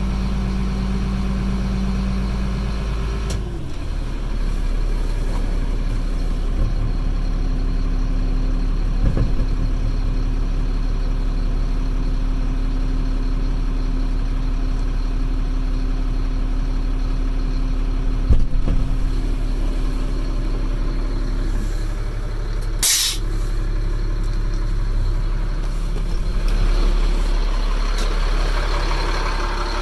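CAT C7 diesel engine of a Ford F-650 dump truck running steadily; its note drops and settles about three and a half seconds in. A short sharp hiss comes about two thirds of the way through.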